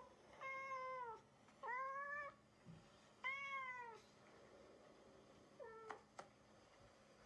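Domestic cat meowing: three drawn-out meows about a second apart, then a shorter one, followed by two sharp clicks near the end.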